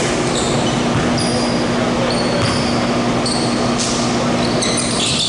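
Gym ambience: a steady low hum over general noise, with short high squeaks that come and go, as of sneakers on a hardwood court.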